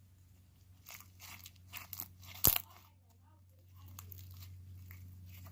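Slime being kneaded and stretched by hand, giving a few scattered crackles and clicks and one sharp pop about two and a half seconds in, over a low steady hum.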